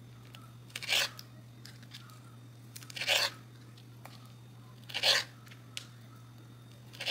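Kitchen knife cutting through the tails of cooked shrimp onto a wooden cutting board: a short crunch about every two seconds as each tail is sliced off.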